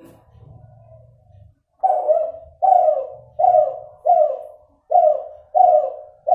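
A crossbred derkuku (spotted dove, Kelantan line) cooing: after a brief pause, a rapid run of about seven short coo notes, evenly spaced at a little over one per second. Its voice is still nasal, and the breeder finds the number of trailing notes inconsistent.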